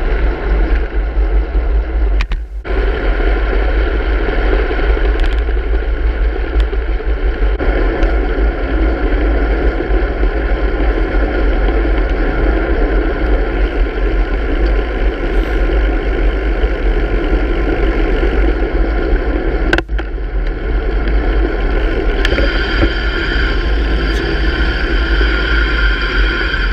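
Steady wind and road noise on the microphone of a bicycle-mounted action camera while riding, with a strong low rumble of wind buffeting.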